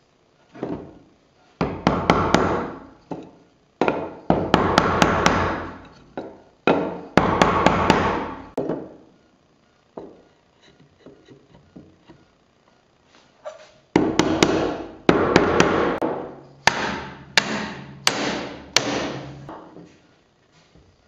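Hammer tapping oak barrel-head boards together onto their dowels, to close the joints. The taps come in clusters of sharp knocks, each ringing on in the wood and the room, with a lull of a few seconds in the middle.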